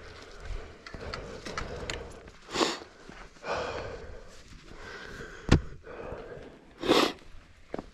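Breathing and sniffing close to the microphone, with two short, loud, sharp breaths about two and a half seconds in and near the end, and a single sharp click about five and a half seconds in.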